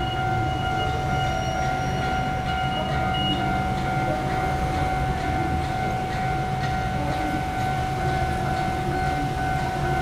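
Railway level-crossing warning alarm sounding steadily in a fixed multi-tone ring, over a low rumble.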